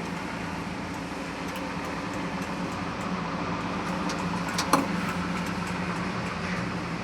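Skid steer loader engine running steadily, with a short click a little under five seconds in.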